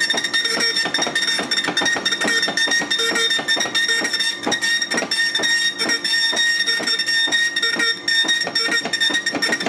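Okidata Pacemark 3410 9-pin wide-carriage dot matrix printer printing fast in single pass: a steady high-pitched whine from the print head, with rapid, irregular clicking from the head and the paper feed, pretty quick.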